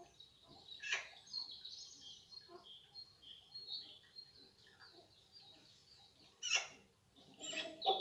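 Small birds chirping and singing almost without pause. A few short, harsh, louder bird calls cut in about a second in, about six and a half seconds in (the loudest) and again near the end.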